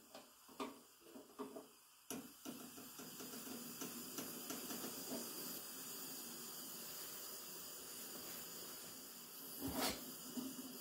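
Optimus 155 kerosene (paraffin) pressure stove burner taking over after a spirit preheat: a few small pops and clicks, then about two seconds in a steady hiss of the vaporised kerosene flame sets in and holds. A single knock comes near the end.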